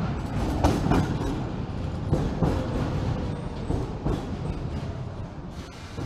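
Budapest metro line M1 train pulling in along the platform, its wheels running over the track with irregular knocks and clatter, the noise easing as it slows.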